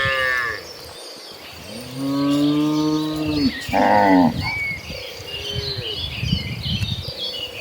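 Cattle mooing: a call ends just at the start, then one long low moo about two seconds in, followed at once by a shorter, higher call.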